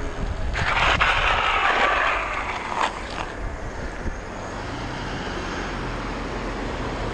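Wind and road noise from riding an electric bike, rushing over the microphone with a low rumble. A louder rushing hiss swells about half a second in and fades after about three seconds.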